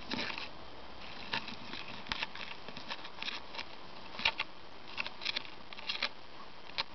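Irregular light clicks and taps as a domino beetle (Anthia sexguttata) grapples with a thrashing morioworm on a plastic tub floor, over a steady faint hiss.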